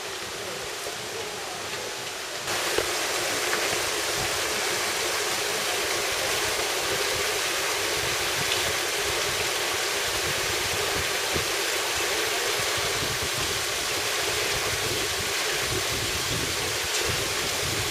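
Small waterfall pouring over rocks into a pool, a steady rush of water. It is quieter at first and becomes louder about two and a half seconds in.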